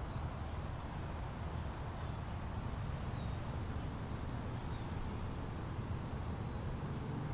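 Small birds chirping in short, high, scattered calls, one louder chirp about two seconds in, over a low steady background rumble.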